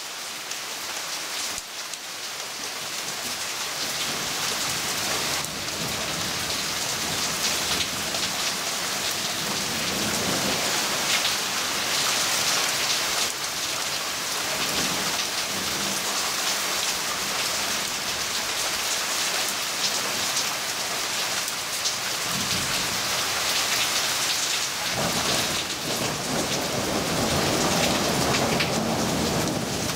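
Heavy rain pouring steadily onto tree foliage, getting louder over the first several seconds. Thunder rumbles low beneath it now and then, most strongly near the end.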